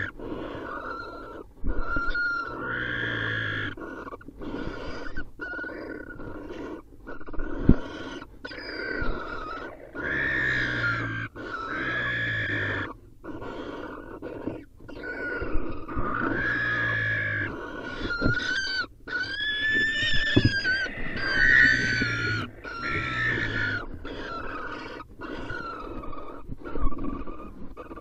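Barn owls calling over and over in a nest-box fight, a series of pitched calls about a second long each that bend up and down in pitch. Now and then there is a sharp thump or knock, about 8 seconds in and again about 20 seconds in.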